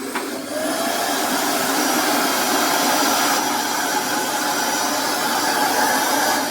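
Vacuum cleaner motor starting up: a click, then a whine that rises in pitch for about the first second as the motor gets up to speed. After that it runs steadily with a loud rushing of air.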